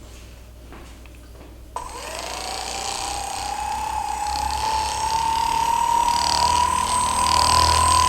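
A small electric motor switches on about two seconds in and runs with a steady whine that rises slightly in pitch as it spins up, then holds, growing gradually louder.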